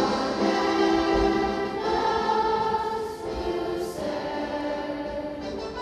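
Children's chorus singing, holding long notes that change pitch about once a second.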